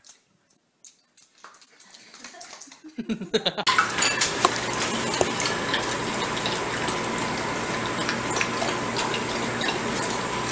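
Pembroke Welsh corgi at its bowl on a tile floor, lapping and knocking the bowl, which gives irregular clinks and clatter over a steady hiss. These sounds start suddenly about three seconds in, after a few quiet seconds.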